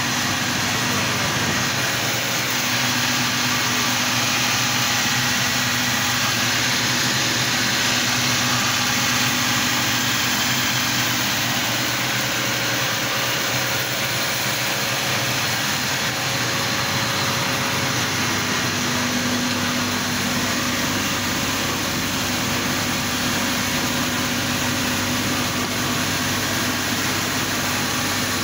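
An atta chakki flour mill powered by a 15 hp electric motor, running continuously. It makes a steady, unbroken machine drone with a hiss of air through the cyclone and pipes.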